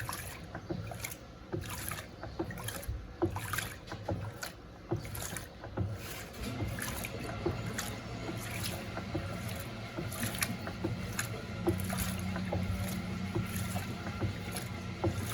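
Electrolux LTC07 top-load washing machine at the start of its cycle, running its initial drain: a low steady pump hum builds about halfway through, under irregular splashing and gurgling of water in the drum.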